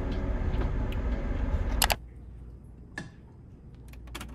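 Steady low road rumble inside a moving car, cut off by a sharp click about two seconds in. Then a quiet room with a few light taps and knocks as potted plants are handled on a desk.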